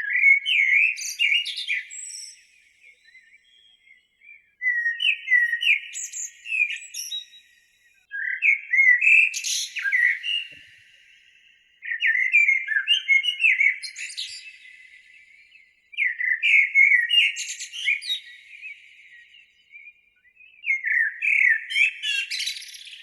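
A bird singing in repeated phrases of quick chirping notes, six phrases each two to three seconds long, with short pauses between them.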